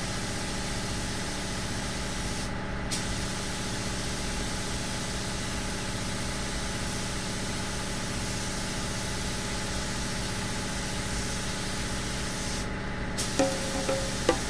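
A small motor running with a steady hum under a hiss of rushing air. The hiss drops out briefly twice, about two and a half seconds in and again near the end, while the hum carries on.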